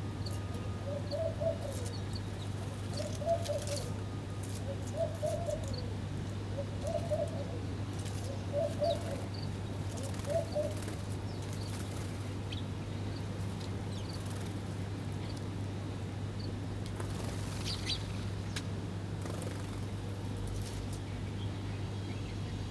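Birds calling: a low, arched call repeated six times, about every two seconds, stopping about halfway through, with scattered short high chirps from other birds. A steady low hum runs underneath.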